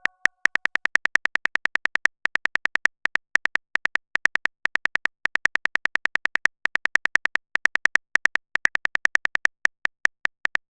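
Phone-typing sound effect: a rapid run of short, high beeps, about eight a second, coming in spurts with brief pauses.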